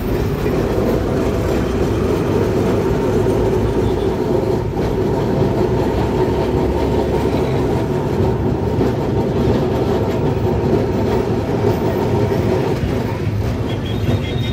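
Kolkata tram running along its tracks, a steady rumble of wheels on rails and running gear heard from inside the car.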